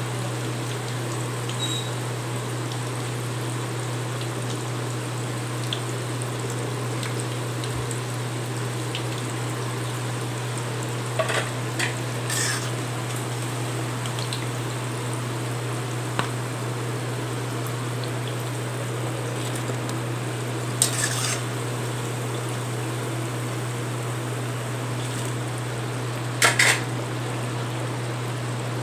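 Idli-batter balls deep-frying in hot oil with a steady sizzle, under a constant low hum. A perforated steel ladle clinks and scrapes against the pan a few times, the loudest near the end.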